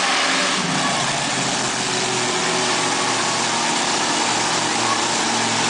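BearFoot monster truck's engine running steadily as the truck drives slowly across the dirt floor.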